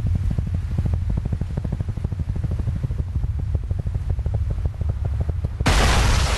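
Military helicopters passing low, their rotors making a rapid, even chopping over a deep engine rumble. A sudden loud blast cuts in near the end.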